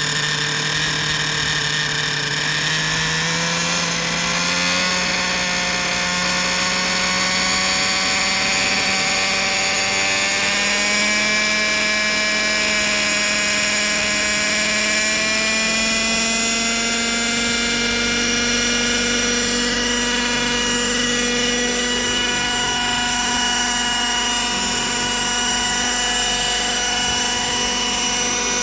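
Unistar 60 model helicopter's engine and rotor running, the pitch rising steadily over the first fifteen seconds or so as it speeds up, then holding level with a high whine.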